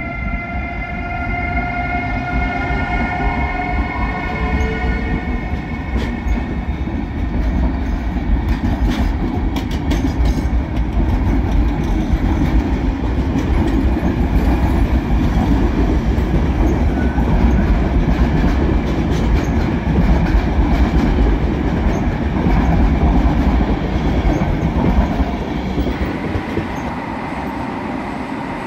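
PKP Intercity EU44 Husarz electric locomotive pulling out with a rising whine from its traction equipment. It is followed by the rumble and clicking wheels of its Nightjet coaches rolling past. Near the end this gives way to a quieter train sound.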